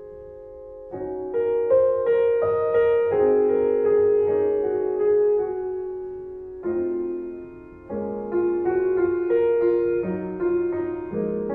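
Background music: solo piano playing a slow melody, each note struck and left to fade. The notes come in about a second in after a quieter start.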